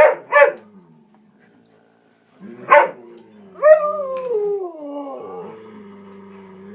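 Large dogs vocalising in excited play: two quick barks, a pause, another bark, then a long drawn-out howl that slides down in pitch and settles into a low steady moan. This is play noise, not fighting.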